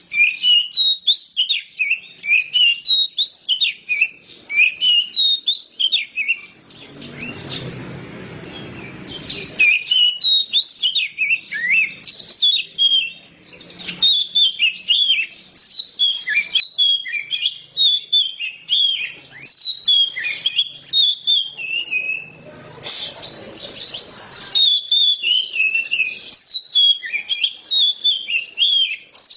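Oriental magpie-robin singing nonstop, a fast unbroken run of varied whistles and chirps. Twice, for about two seconds each, a rushing noise sounds beneath the song.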